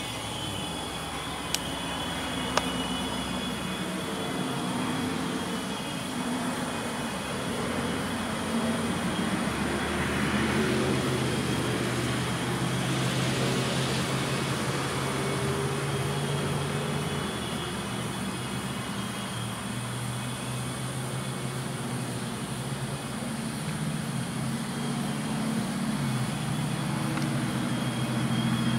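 Freight train rolling slowly away, with a steady engine drone and two sharp clicks about two seconds in.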